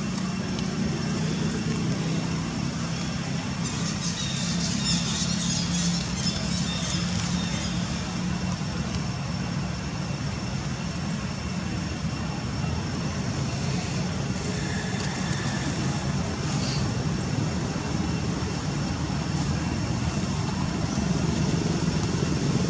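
Steady low motor rumble of road traffic, with a few faint high crackles about four to eight seconds in.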